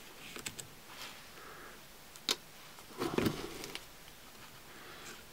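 Flat steel knife slicing thin discs off the cut top of an Echinopsis cactus rootstock to freshen the graft surface: a few soft clicks, a sharp click about two seconds in and a short scraping crunch about a second later.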